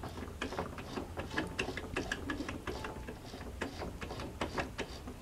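Light, irregular mechanical clicking and ticking from the exposed needle-bar mechanism of a portable sewing machine as its moving parts are worked, several clicks a second.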